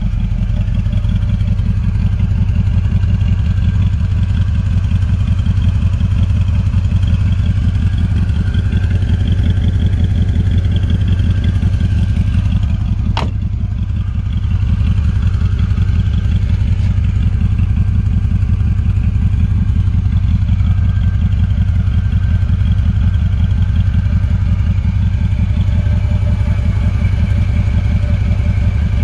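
1969 Corvette's 350 cubic-inch small-block V8 idling steadily through its factory side-pipe exhausts, a deep even pulsing. A single sharp click comes about halfway through.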